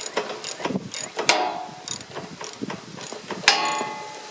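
Hand wrenches and a socket clicking and clinking on metal as they work a nut on a riding lawn mower's front steering linkage, with a rapid run of ratchet-like clicks. A louder metal clink rings briefly about three and a half seconds in.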